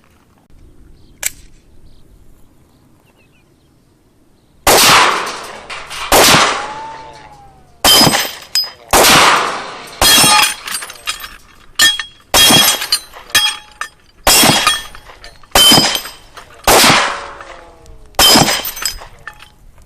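About a dozen pistol shots from a Glock firing .40 S&W rounds, starting about four and a half seconds in and coming roughly one a second, each with a short ringing tail.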